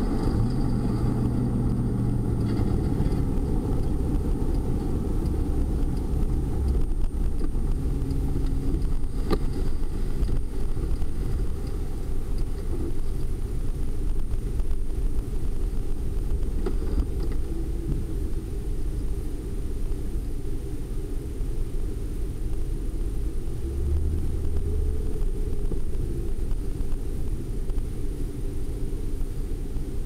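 Car engine and road rumble heard from inside a moving taxi cab, steady, with the engine note shifting now and then.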